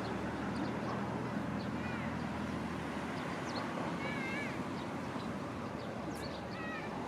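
A cat meowing three short times over steady background noise with a low hum.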